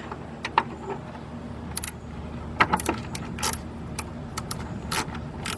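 Ratchet with a 13 mm socket on a 12-inch extension working the battery hold-down clamp bolt: scattered metallic clicks and clinks, a few at a time, over a steady low hum.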